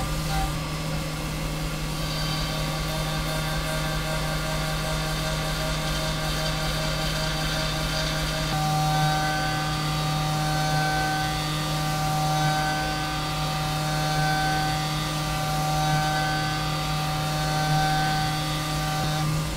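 Tormach 1100MX CNC mill spindle turning a 3/8-inch five-flute end mill at 9000 RPM, cutting a metal block under flood coolant: a steady machining whine over a low hum. About eight seconds in, the cutting tone grows stronger and a higher pulse repeats about every one and a half seconds.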